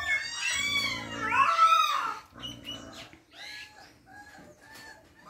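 Newborn Rajapalayam puppies, a few days old, squeaking and whining while nursing: high, wavering cries that crowd the first two seconds, then thin out to a few short, flat squeaks.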